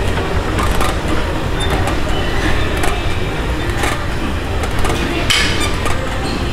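Steady low rumble of a busy gym, with a few sharp metallic clanks from the weight machines.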